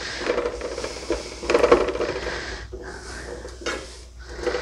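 Diced celery, onion and apple sautéing in butter and olive oil in a pan, a steady sizzle that swells and fades, with a couple of sharp metallic clinks of a utensil against the pan.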